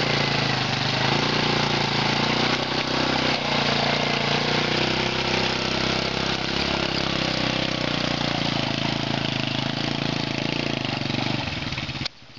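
The engine of a Leshy 2x2 all-wheel-drive motorcycle running steadily under load as it crawls through deep mud and water. The sound cuts off suddenly near the end.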